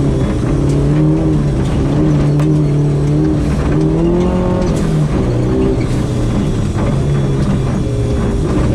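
Mazda 323 GTR rally car's turbocharged four-cylinder engine running hard, heard from inside the cabin, its pitch climbing about four seconds in and dropping a second later, over a steady hiss of tyres on gravel.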